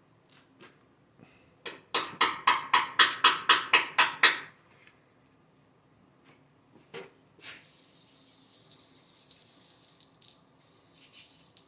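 An aerosol spray can shaken with about ten quick rattling strokes, about four a second, then sprayed in a steady hiss for about four seconds with a brief break.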